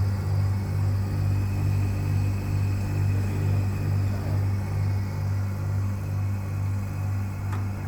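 1979 National multi-split air conditioner's compressor running with a steady deep hum that beats slowly and evenly, about one and a half pulses a second. It sounds healthy.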